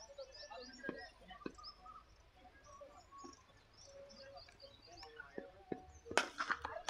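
Small birds chirping repeatedly in the background, then the sharp crack of a cricket bat striking the ball about six seconds in.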